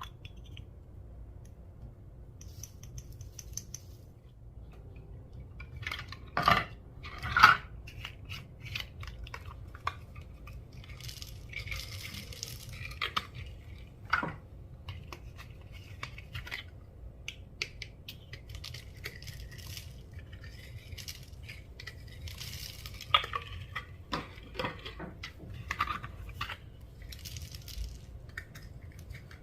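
Slime being pressed, stretched and mixed by hand, with irregular sticky pops, crackles and clicks; a few louder snaps come about a third of the way in and again near the end.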